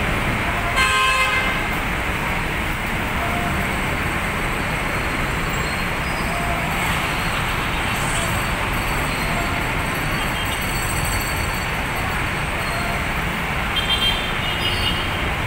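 Steady city traffic from buses, cars and motorcycles, with a vehicle horn blaring for about half a second about a second in and three quick high toots near the end.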